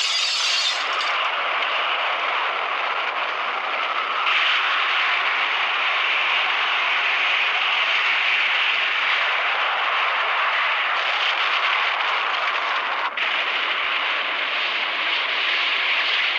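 Atomic-bomb blast sound effect in an anime: a loud, steady rushing noise with no tone in it. It opens with a brief bright burst, grows stronger and brighter about four seconds in, and drops out for a moment near the end.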